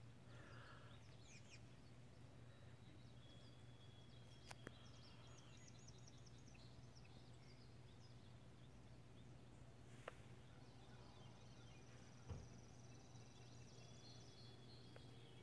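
Near silence: faint outdoor ambience with a steady low hum and faint, rapid, high bird trills, twice. There are three soft clicks.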